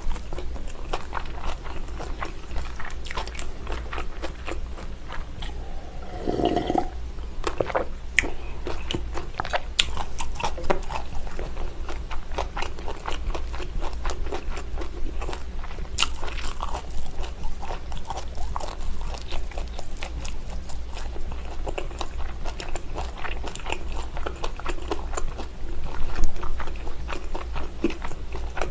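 Close-miked chewing of a mouthful of braised pig's trotter: a steady run of wet, sticky mouth clicks and smacks from chewing the chewy skin and meat, with a brief hum about six seconds in.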